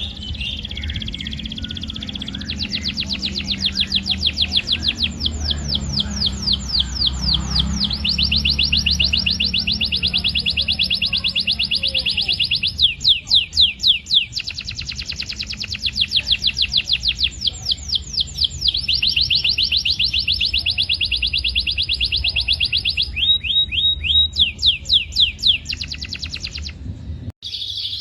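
Domestic canary singing long rolling trills, rapid runs of evenly repeated high notes that switch to a new note type every few seconds, over a steady low hum. The song breaks off briefly near the end and starts again on a new phrase.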